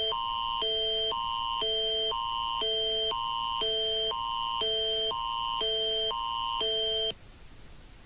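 Canadian Alert Ready attention signal: two shrill electronic chords alternate every half second, a higher one and a lower one, and the signal cuts off suddenly about seven seconds in. It marks the switch from the English alert message to the French one.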